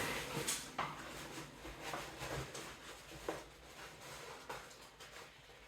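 Handling noise from a packed backpack: scattered soft rustles and a few light knocks, about half a dozen over a few seconds, with quiet room tone between them.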